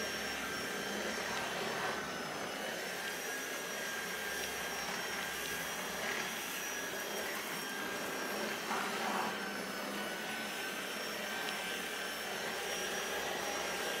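Tineco Pure ONE S11 cordless vacuum running steadily with its mini brush roller on stair carpet: an even rush of air with a steady high whine.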